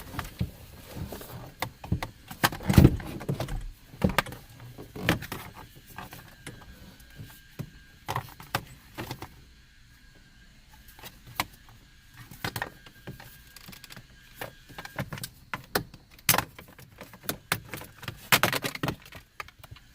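Irregular clicks, knocks and short rattles of metal and plastic parts being handled as a car's unbolted steering column is worked down from under the dash, with the loudest knock about three seconds in.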